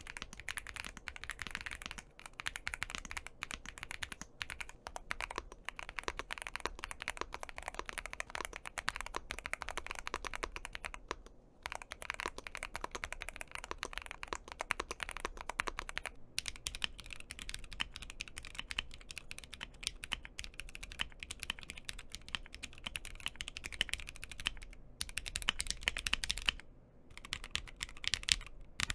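Custom mechanical keyboards being typed on quickly and continuously, a dense run of key clacks. First a Womier S-K71, then, after a brief break about 16 seconds in, a GMMK Pro.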